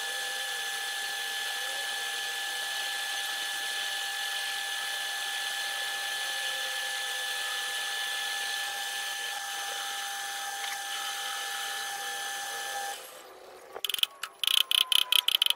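Metal lathe running with its chuck spinning, a steady machine hum with a couple of constant tones, which stops about 13 s in. About a second later comes a rapid run of loud sharp clicks.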